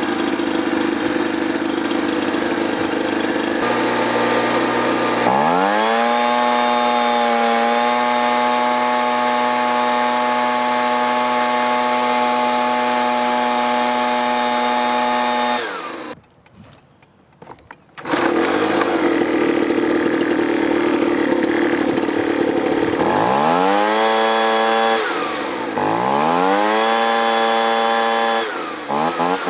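Two-stroke leaf blower engine, its carburetor freshly cleaned, idling and then revved to high throttle and held there for about ten seconds. After a two-second break it idles again and is revved up and let back down three times.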